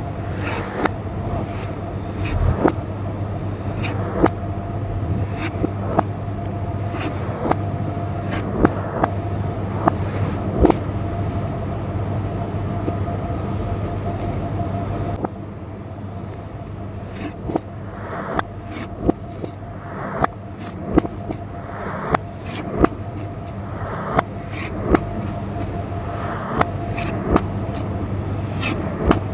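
A kitchen knife cutting vegetables on a board, with sharp taps every half second to a second over a steady mechanical hum.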